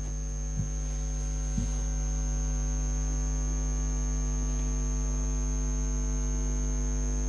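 Steady electrical mains hum with many even overtones and a thin high whine, with two small low knocks in the first two seconds and a brief dropout at the very end.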